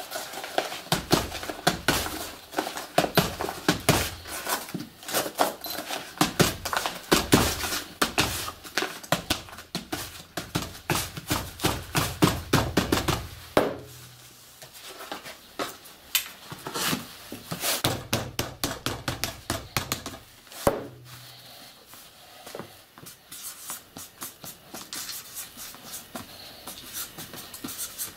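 Hand rammer tamped repeatedly down into a paper-wrapped cylindrical firework shell, packing its contents. It makes quick, loud knocks, about three a second, through the first half. In the second half they turn sparser and softer.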